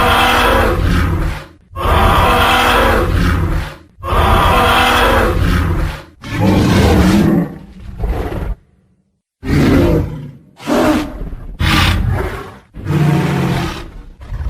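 Tyrannosaurus rex roar sound effect: a string of about eight loud, deep roars, each lasting one to two seconds with short gaps between, and a brief silence about two-thirds of the way through.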